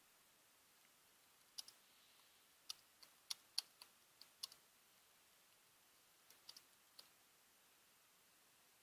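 Computer keyboard typing: a run of about ten scattered keystroke clicks, a pause of under two seconds, then four more, over near-silent room tone.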